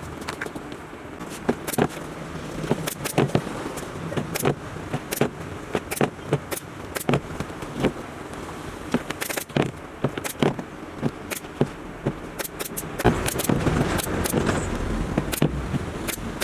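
Sharp clacks and knocks of upholstery work on the chair, coming irregularly about once or twice a second, over a steady hum of road traffic.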